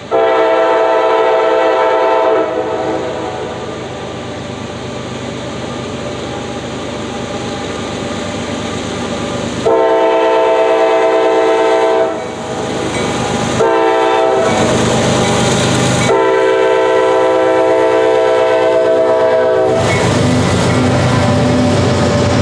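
CSX GE Evolution-series DC diesel locomotive's multi-chime air horn sounding a series of blasts: one long blast at the start, then long, short and long again from about ten seconds in, the grade-crossing pattern. Near the end the locomotives' engines and the tank cars' wheels rumble and clatter past.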